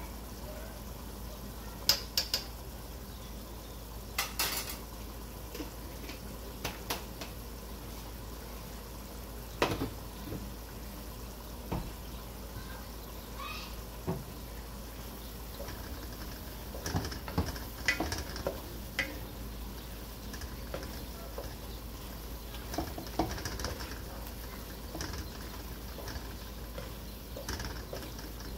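Wooden spatula knocking and scraping against an aluminium pot as onions and ground spices are stirred in hot oil, over a low, steady frying sizzle. The knocks come at irregular times, in small clusters.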